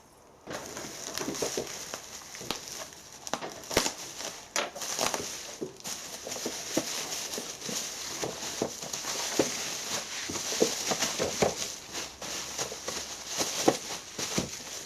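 Wrapping being torn open and unwrapped by hand, crinkling and crackling continuously with scattered small clicks.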